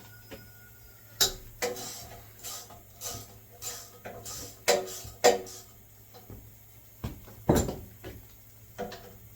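Irregular metallic clinks and clanks of hand tools against engine parts, a dozen or so scattered knocks, some ringing briefly, with the loudest near the middle and about two-thirds of the way through.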